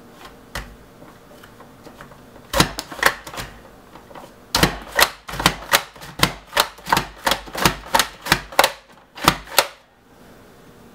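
Pampered Chef plunger slicer cutting lemons in quick strokes, each push of the plunger driving the fruit through the blade with a sharp clack. A short burst of three or four strokes comes first, then a steady run of about fifteen at roughly three a second.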